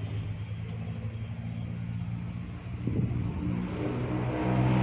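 A motor vehicle's engine running with a steady low hum that grows louder over the last second or two, as the vehicle speeds up or comes closer.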